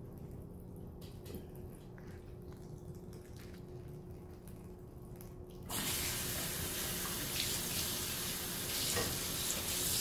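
Kitchen sink faucet turned on a little over halfway through, then water running steadily into the sink over dyed silk garments being rinsed out. Before that, only a faint low hum.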